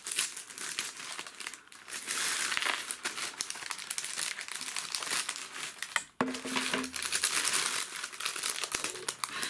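Brown paper wrapping crinkling and rustling as it is cut with scissors and pulled open by hand, with a brief break about six seconds in.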